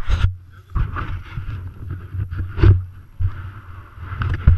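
Handling noise on a helmet-mounted action camera: irregular knocks and bumps over a low rumble of wind buffeting the microphone as the helmet is picked up and moved.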